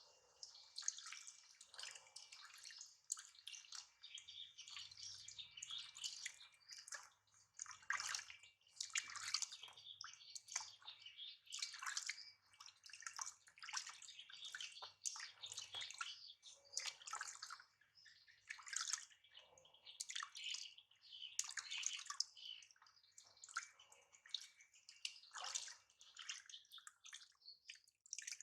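Water splashing and pouring irregularly as a baby is washed under a warm shower.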